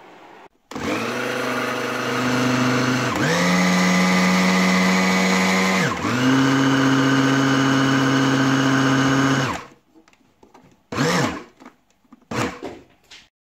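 Philips HR7762/90 food processor driving its blender jar, running quietly with its gears freshly cleaned and regreased: a steady, even motor whine. It starts about half a second in, sags briefly in pitch and picks up again twice, and stops after about nine seconds. Two short bursts of the motor come near the end.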